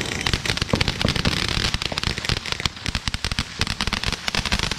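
A string of firecrackers going off: rapid, irregular sharp pops.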